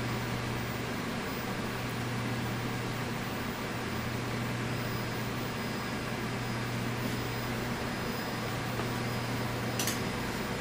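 Steady low electrical hum under an even fan-like hiss from the running test equipment, with one faint click near the end.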